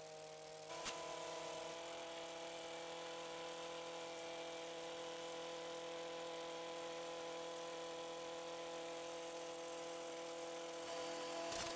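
Handheld shaft-mounted power edger with a toothed disc blade running at a steady speed as it cuts the turf edge of a sand bunker. A click about a second in, after which it runs a little louder.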